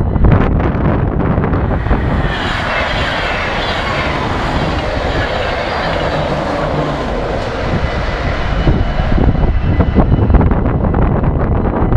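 Yellow-and-blue Dutch passenger train passing a level crossing, its wheels and body making a rushing noise that builds about two seconds in and fades after about nine. The level-crossing warning bells ring around it, and wind buffets the microphone.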